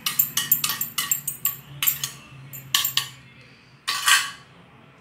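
Steel spoon clinking and scraping against stainless steel bowls: a quick run of sharp clinks for about three seconds, then one longer scrape about four seconds in.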